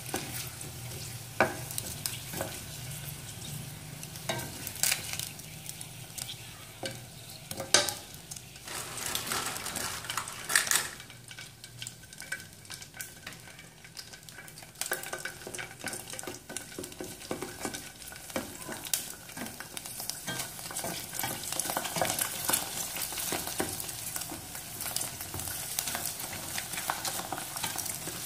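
Prawn crackers deep-frying in hot oil in a metal pot, with a dense sizzle and crackle as they puff, and chopsticks knocking against the pot a few times. The sizzle drops away for a few seconds about halfway through, then picks up again as a fresh batch of raw crackers goes into the oil.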